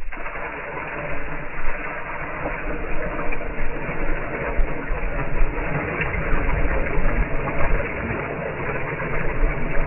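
Water poured out of a bucket onto dry soil around plants: a continuous splashing rush with a low rumble under it.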